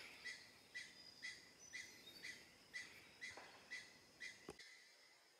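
A faint call from a small animal in the trees: short chirping notes repeated evenly at about two a second, stopping about four and a half seconds in, with a faint click near the end.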